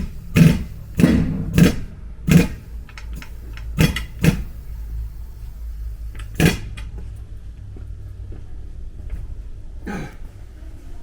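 Metal hammer blows on the steel body panel of a Toyota Sienta under collision repair. There is a quick run of sharp, ringing strikes, then they come sparser: two near four seconds in, one loud blow at about six and a half seconds, and a weaker one near the end. A steady low hum runs underneath.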